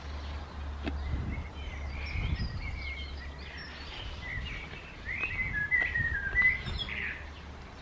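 A garden songbird singing a run of short chirping and warbling notes, over a low background rumble, with a few faint clicks as camping gear is lifted out of a pouch.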